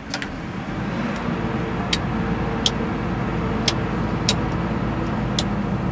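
A Doosan excavator's diesel engine catching on a cold start at minus 7 degrees, building up over about the first second and then running at a steady idle. A few sharp clicks sound over the engine.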